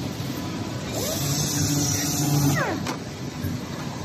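Belino brush sanding machine running steadily as wooden cabinet door panels pass through on its conveyor, with a low hum and a few short squeaking glides. It is louder from about one second in until two and a half seconds in.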